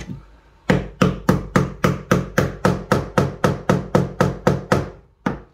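A screwdriver handle rapidly tapping a rollerblade skate bearing deeper into a 3D-printed plastic spool holder, about seventeen sharp knocks at roughly four a second, each ringing briefly, with one last knock near the end.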